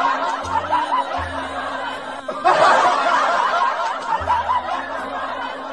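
Canned audience laughter sound effect, bursting in twice and fading each time, over background music with a steady bass line.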